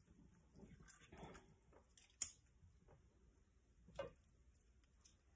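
Faint wet squishing of drained canned jackfruit being mashed by hand in a bowl, with a few scattered soft clicks, the sharpest about two seconds in.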